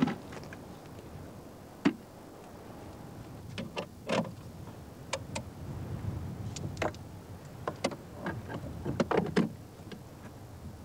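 Scattered sharp clicks and knocks of a plug and switch being worked by hand at a wall-mounted connection panel, over a faint low rumble. The loudest click comes about two seconds in, and there is a quick cluster of clicks near the end.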